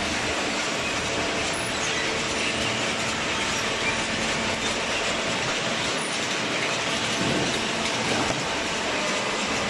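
Large cardboard baler machinery running: a steady, even mechanical clatter and rumble with faint steady tones.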